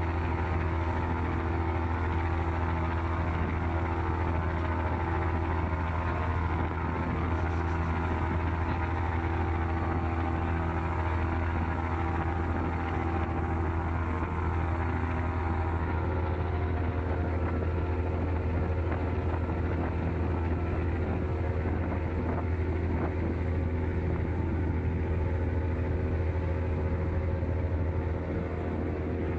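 Passenger ferry's engine running steadily under way, a deep even drone with a hiss of wash and wind over it.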